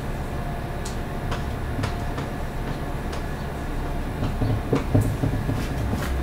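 Marker writing on a whiteboard: short, faint scratches and ticks spaced irregularly over a steady low room hum.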